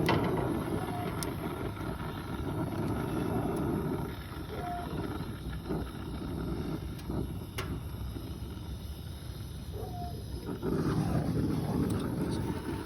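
Handheld soldering torch flame burning steadily with a low rushing noise as it heats a copper line-set joint until the solder melts; it grows louder near the end.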